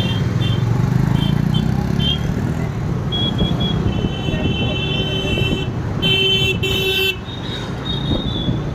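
Busy city road traffic: a steady rumble of engines, with vehicle horns honking over it. There are several short toots in the first two seconds, longer honks from about three to six seconds in, and the loudest honk at about six seconds.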